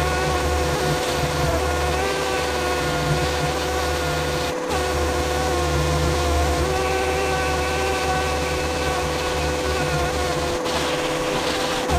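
An electric power tool's motor running steadily with a buzzing hum, briefly dropping out twice.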